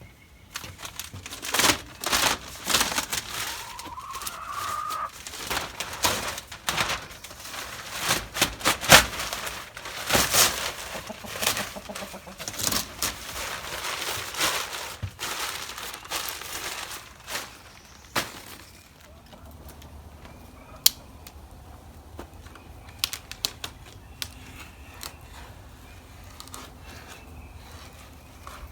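Plastic sheeting crinkling and tearing as it is pulled off a chicken coop, with many sharp crackles for about the first eighteen seconds, then quieter with scattered clicks. Chickens cluck in the background.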